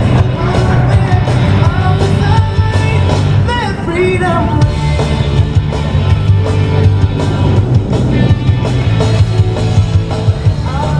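Loud music with a singer over a steady, heavy bass line.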